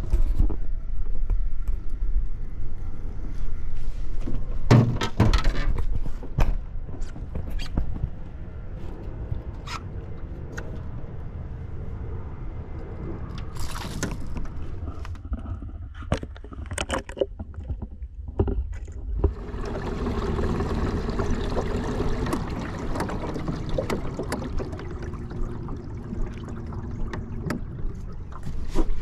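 Knocks and clicks of fishing gear being handled in a small aluminum jon boat, over a constant low rumble. A steady low hum joins about two-thirds of the way through.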